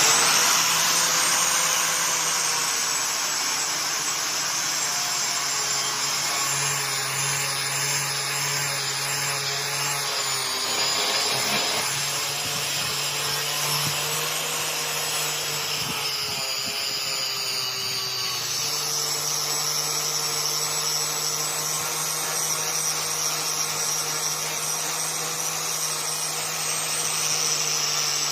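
Electric grinder running steadily on steel blade stock with a constant whine and hiss, its pitch sagging slightly about ten seconds in and again near eighteen seconds as the work is pressed against it.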